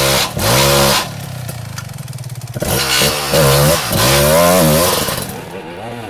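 Dirt bike engine revving hard in repeated rising and falling surges as the bike churns through mud, the rear wheel spinning and throwing dirt; the revving eases off near the end.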